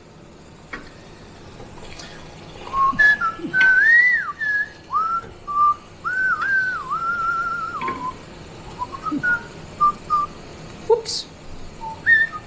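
A man whistling a meandering tune, starting about three seconds in and breaking into a few scattered notes near the end, with a few light clicks alongside.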